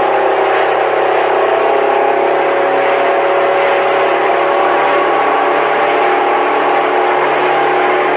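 Motorboat engine running steadily, a constant drone at an even pitch and level.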